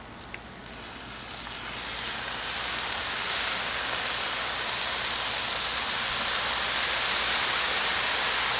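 Soy sauce sizzling as it is poured onto fried rice on a hot flat-top griddle. The hiss builds over the first few seconds, then holds steady and loud.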